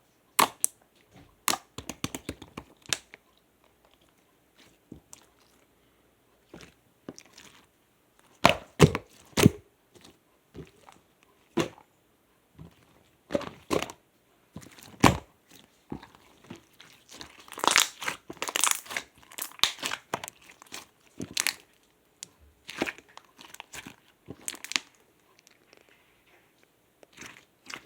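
Clear slime being squeezed and stretched by hand, giving off irregular sticky pops and clicks, some in quick bursts.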